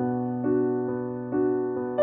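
Gentle background piano music: slow notes struck about once a second and left to ring over a held low note.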